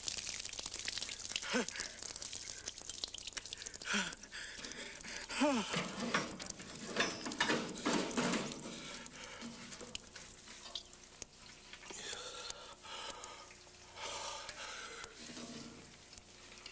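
Gasoline pouring and splashing from a fuel pump nozzle held to a man's mouth and over his face, with a few short pitched vocal sounds in the first half.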